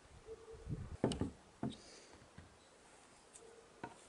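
A few knocks and soft thumps as apples are handled and set down among a pile of produce: the sharpest knock about a second in, another just after, and a fainter one near the end.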